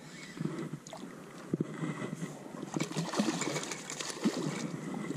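Water lapping and splashing against the side of a small fishing boat, with irregular small knocks, busier from about halfway through.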